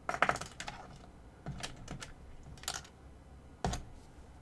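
Typing on a computer keyboard: short irregular runs of key clicks with pauses between them.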